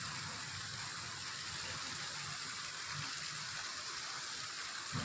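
Steady rushing of water, an even hiss, with a brief low thump at the very end.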